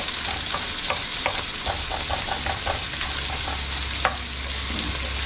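Chopped bacon frying in a pan on low heat: a steady sizzle with scattered crackles and pops.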